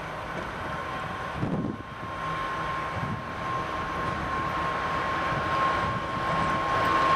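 2TE116 twin-section diesel locomotive approaching with a train, its 16-cylinder diesel engines running with a steady high whine over a low rumble, growing louder as it nears.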